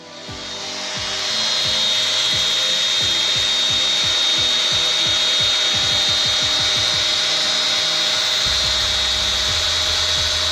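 CNC machine cutting, a steady machining noise with a high whine running through it.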